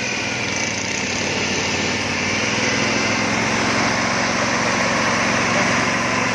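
Briggs & Stratton Vanguard 18 hp V-twin petrol engine of a Stanley hydraulic power unit running steadily, driving the hydraulic pump.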